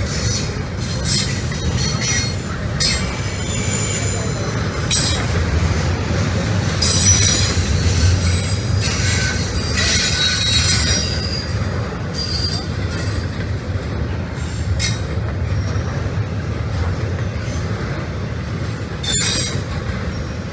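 Double-stack intermodal freight train rolling past, with a steady low rumble from its container well cars. Shrill wheel squeal comes and goes through the middle stretch, and there is a sharp clack every few seconds.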